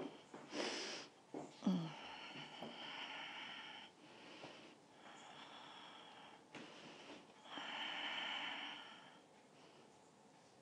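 A woman breathing audibly and slowly close to a clip-on microphone, faint, with two long breaths: one about two seconds in and one near eight seconds in.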